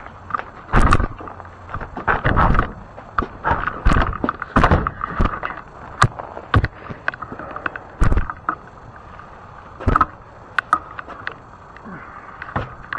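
Irregular knocks, clicks and rattles from a fat-tire e-bike and its mounted camera being walked and shifted about beside plastic trash bins, over a steady hiss.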